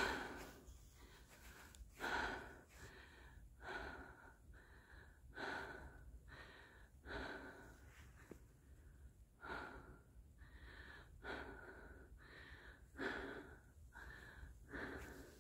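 A person breathing hard, with quick regular breaths in and out about once a second, out of breath from climbing a mountain trail.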